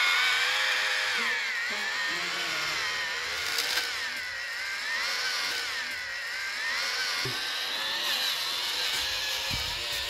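Small electric drive motor and gears of a homemade remote-control pickup truck whining as it drives, the pitch rising and falling smoothly with the throttle. A couple of low thumps near the end.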